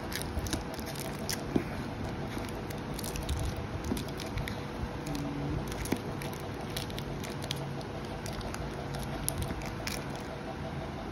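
Fingers picking at and peeling the tear strip of a cardboard courier envelope: irregular scratching, crinkling and small paper clicks throughout.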